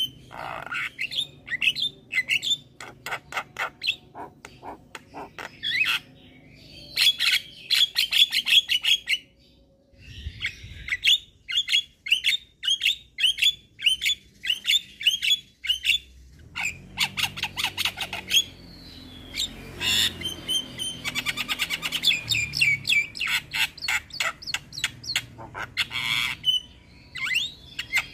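Javan myna (jalak kebo) in full song: fast runs of short, harsh chattering notes and squawks, broken by brief pauses about ten and sixteen seconds in.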